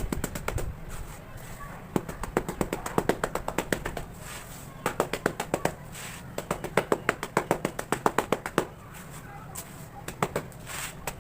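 Fast tapping on cement cakes being made, several sharp taps a second in two long runs, with a short pause between them and quieter stretches at the start and near the end.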